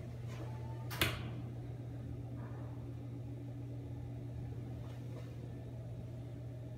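Steady low mechanical hum, with one sharp click about a second in and a couple of faint knocks later.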